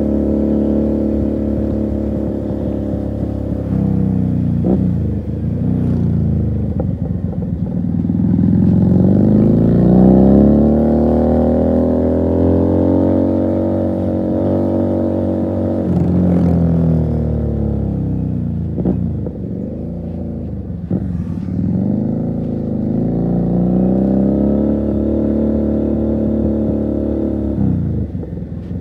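Motorcycle engine under way, its pitch climbing with the throttle and dropping at each gear change or roll-off, several times over, with brief dips at the shifts.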